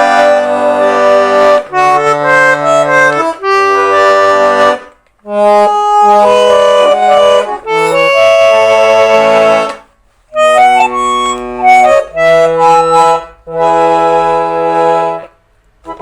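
Chemnitz concertina from Carlsfeld playing a sequence of held chords over bass notes, the chords changing every second or two. The playing breaks off briefly about five and ten seconds in, and again near the end.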